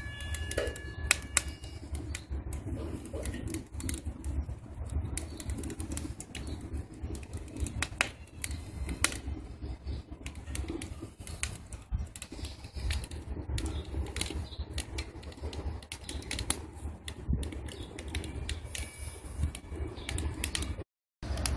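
Wood sticks burning in a rocket stove's feed chamber, crackling with irregular sharp pops, over a low steady rumble.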